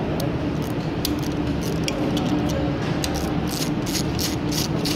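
Ratchet wrench clicking as it turns the bolts of an Eaton truck transmission's front bearing cover plate: scattered clicks at first, then a quick, even run of about five a second near the end.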